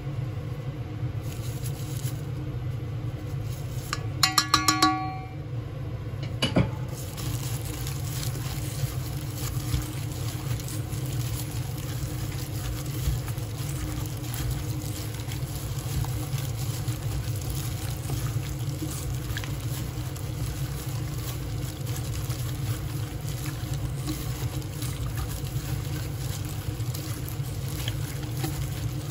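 Gloved hand mixing raw chicken wings with minced ginger and sauce in a stainless steel pot, with wet squishing and small clicks against the pot over a steady low hum. A short, loud pitched sound comes about four seconds in, then a sharp click.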